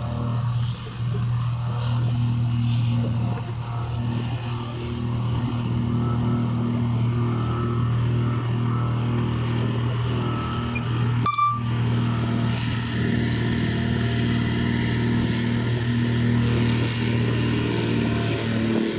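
Petrol-engined vibrating plate compactor running steadily with a low, even hum. The sound breaks off for a split second about eleven seconds in.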